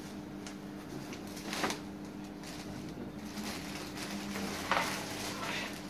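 Joie Pact compact stroller being folded by hand: soft rustling and handling of the frame and canopy, with two sharp clicks, one about a second and a half in and another about three seconds later.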